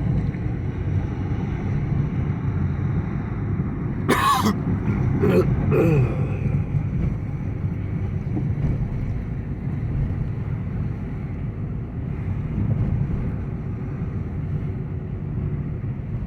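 A vehicle engine running steadily while on the move, a low rumble throughout. About four seconds in, a person coughs and clears their throat a couple of times.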